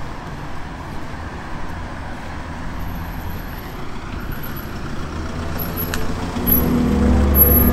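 Steady outdoor hiss of distant road traffic. About six and a half seconds in, a low drone of background music comes in and grows louder.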